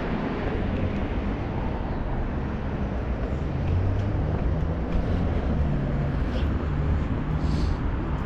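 Road traffic: a motor vehicle's engine humming close by, steadier from about three seconds in, over general street noise.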